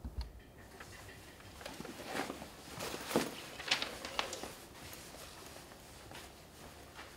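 A person getting up from a desk and walking off: rustling of clothes and a backpack, a few light knocks, and footsteps on the floor. There is a low bump at the very start.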